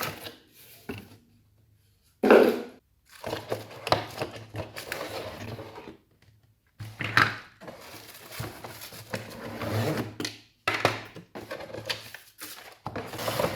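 Plastic toy parts and a cardboard box being handled: irregular rustling, scraping and knocks, with the loudest knock about two seconds in.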